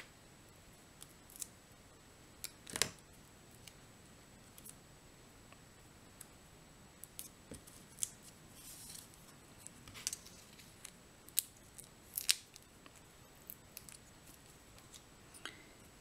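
Scattered faint snips and clicks from small craft scissors and from small paper and foam-adhesive pieces being handled, with quiet room tone between.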